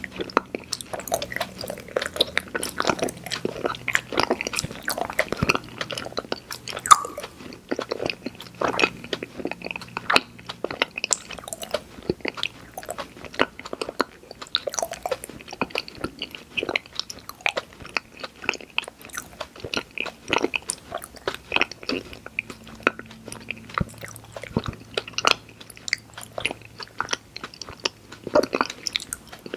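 Close-miked chewing and biting of candy sweets, a dense run of irregular crunches and mouth clicks.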